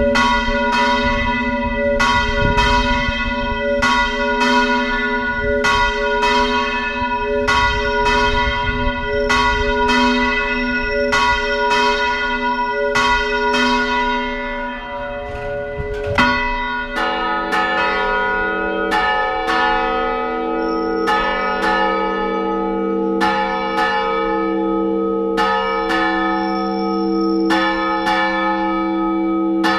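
Church tower bells rung by hand in a traditional Spanish toque, each stroke ringing on into the next. For the first half a steady stroke falls about every three-quarters of a second. About halfway through the ringing changes to a deeper set of bells, with strokes at less even spacing.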